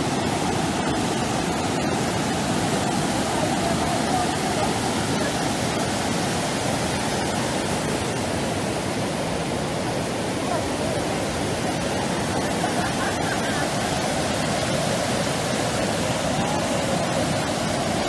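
Whitewater rushing over rock ledges at a waterfall cascade, a steady, unbroken rush of water.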